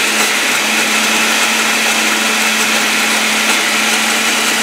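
Oster countertop blender running steadily, puréeing soaked quinoa and water into batter, with a constant motor hum under the whir.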